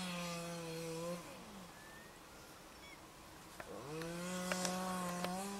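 A two-stroke chainsaw revving up and cutting into ice in two bursts. The first dies away about a second in; the second starts about four seconds in and runs on, with a few sharp clicks.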